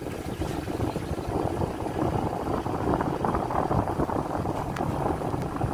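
Wind buffeting the microphone over the steady road and engine rumble of a moving vehicle.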